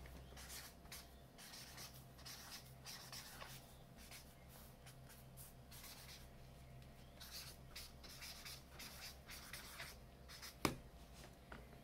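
Thick marker writing on sketchbook paper in quick, irregular strokes as a graffiti tag is drawn, with one sharp click near the end.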